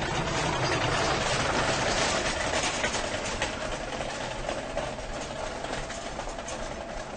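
Train moving along a station platform: a rushing rumble that swells to its loudest about two seconds in and then slowly fades, with a steady whining tone and scattered clicks.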